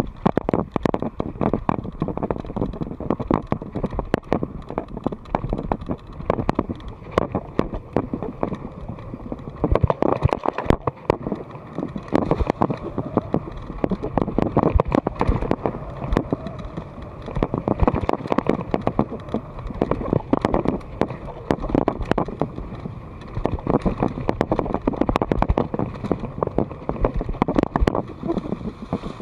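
Mountain bike rattling over a rough dirt singletrack: a dense, irregular run of knocks and clatters from the bike over the bumps, over a steady rumble of tyres on dirt.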